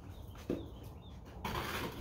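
Hands at potting work: a soft thump about half a second in and a brief rustling scrape near the end, over a steady background hiss, with faint bird chirps behind.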